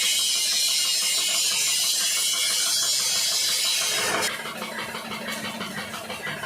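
Electric arc welding: the arc crackles and hisses steadily, then stops about four seconds in.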